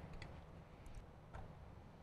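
A few faint, scattered clicks of a socket extension and bolts being handled while a motorcycle fairing is bolted back together, over quiet room tone.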